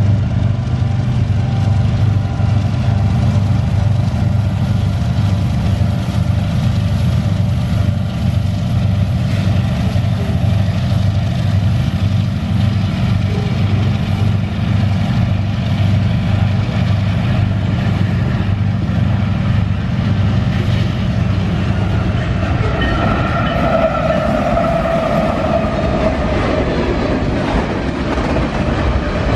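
Long freight trains of loaded grain hoppers and empty potash hoppers rolling past close by: a steady, loud low rumble of wheels on rail. In the last few seconds a wavering higher tone rises over the rumble.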